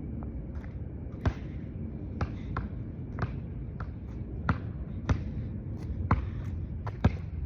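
A basketball bouncing on a hard court, about nine sharp bounces at an uneven pace, over a steady low background rumble.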